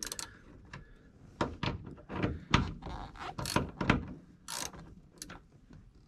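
Ratchet wrench with a 13 mm socket loosening the bolts at the base of a VW Beetle's shift lever: a string of irregular ratchet clicks and metal clacks.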